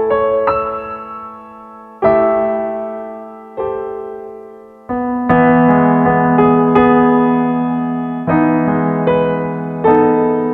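Slow piano music: chords struck and left to ring down, fuller and coming more often from about halfway through.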